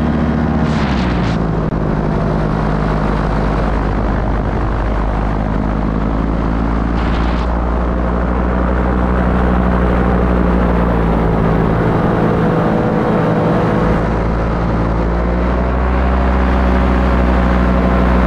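Paramotor engine and propeller running steadily in flight. Its pitch drops a little about a second in as the throttle eases, then holds. Short bursts of hiss come about a second in and again around seven seconds.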